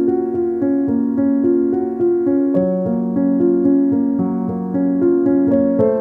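Background music: a piano-like keyboard plays a quick run of repeated notes over held chords, with the chord changing about two and a half seconds in and again near the end.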